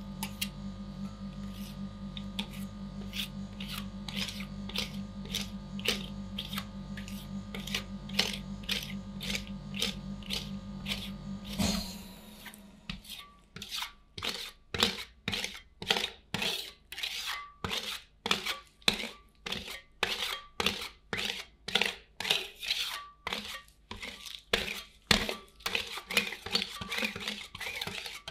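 Metal spatulas chopping and scraping rhythmically on the cold steel plate of an ice cream roll pan, about two strokes a second. A steady low hum underneath cuts off about twelve seconds in.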